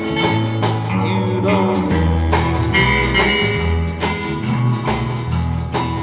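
Country music record: a small band playing with a steady beat and a bass line stepping from note to note, guitar over it.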